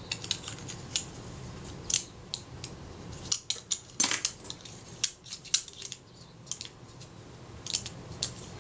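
Irregular sharp metallic clicks and ticks of small Kodak Retina IIIc camera parts being worked by hand: the front standard sliding and knocking in its shroud, rattling with too much play. The loudest cluster of clicks comes about four seconds in.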